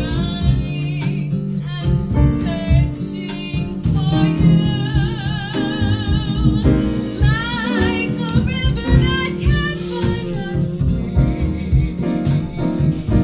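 A woman singing a slow bossa nova ballad with vibrato on her held notes, backed by a jazz band of nylon-string guitar, piano, upright bass and drums, with saxophone.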